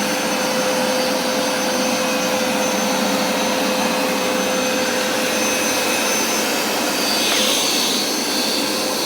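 Hoover SmartWash Plus carpet cleaner running steadily, a constant motor hum and whine with a steady high tone over it.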